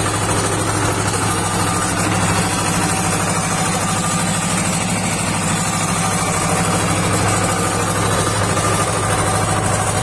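Tandem road roller's diesel engine running steadily at a constant pitch, with no change in speed.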